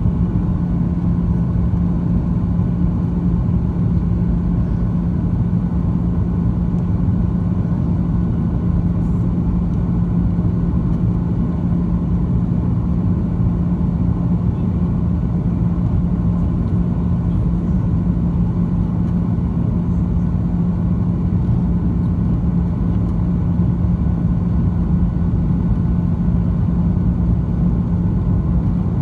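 Cabin noise inside a Boeing 737-900 descending on approach: the CFM56-7B turbofan engines and rushing airflow make a steady low drone with a constant hum.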